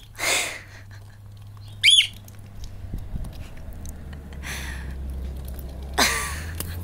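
Pet parrots calling: a harsh squawk just after the start, a sharp whistled chirp about two seconds in, another harsh squawk around halfway, and a loud squawk near the end.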